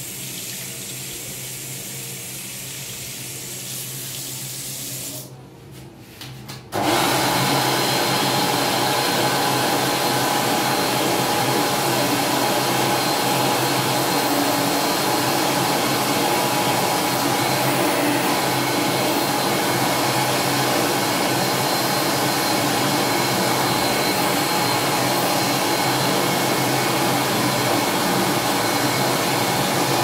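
A tap running over washing hands for about five seconds, then shut off. About seven seconds in, a Xinda GSQ250C (PRITEC Sunflow) push-button hand dryer starts suddenly and runs loud and steady, its blower carrying a thin high tone.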